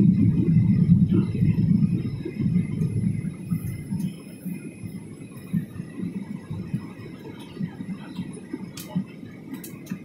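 Airliner cabin noise heard from a window seat during the descent to land: a low, steady rumble that is loud at first, then drops to a quieter drone about three seconds in.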